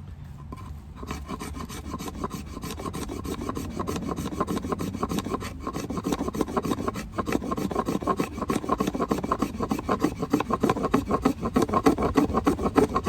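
The sharp square 90-degree spine of a fixed-blade knife scraping along a piece of wood in rapid repeated strokes, rasping off fine tinder shavings. The strokes begin about a second in and grow louder toward the end.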